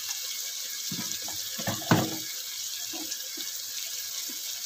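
Onion-tomato masala frying in ghee in an aluminium pot, a steady sizzle, with a couple of soft knocks about one and two seconds in.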